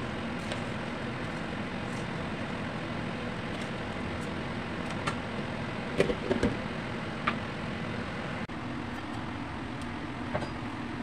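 Steady rushing kitchen background noise, with a few short sharp clinks of cookware against the pot about six to seven seconds in.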